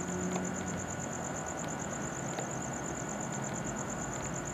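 Crickets trilling steadily in a fast, even pulse, over a low steady hum and a few faint ticks.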